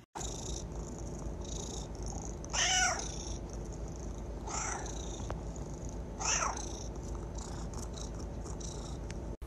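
Domestic cat purring steadily, with three short meows a couple of seconds apart; the first is the loudest.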